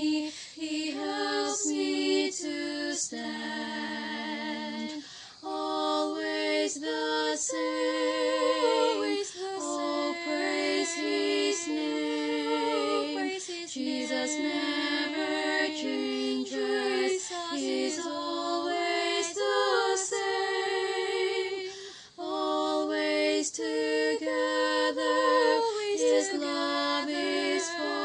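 A woman singing solo and unaccompanied, a cappella, holding notes with a wavering vibrato and pausing briefly for breath a couple of times.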